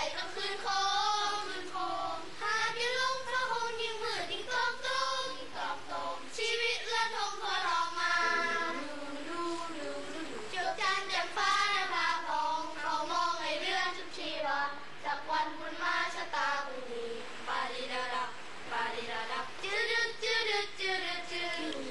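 Boys' choir of young schoolboys singing together in long rising and falling phrases.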